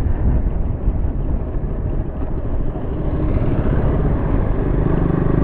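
KTM motorcycle being ridden, its engine running under heavy wind noise on the microphone, with a steadier engine tone coming through about three seconds in. The rider believes the clutch plate is burnt, as the bike won't pick up speed.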